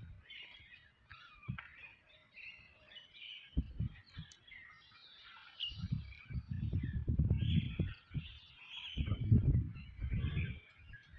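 Small birds chirping and twittering on and off throughout, with louder bursts of low rumble on the microphone a few seconds in, through the middle and again near the end.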